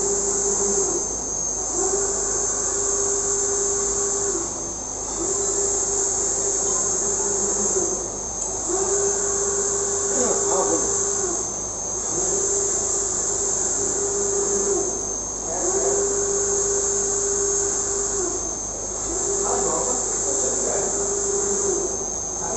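UV flatbed printer running: the print-head carriage makes a steady high whine and a lower hum as it sweeps back and forth across the bed. Each pass lasts about three seconds, with a brief dip between passes as the carriage turns around.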